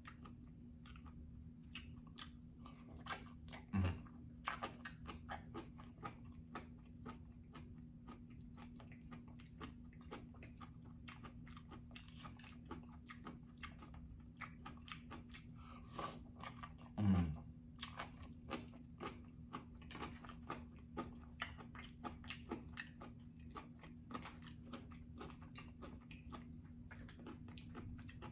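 Close-miked chewing of sushi rolls, with wet mouth clicks and small crunches throughout. Two short, falling hums come about 4 seconds and 17 seconds in.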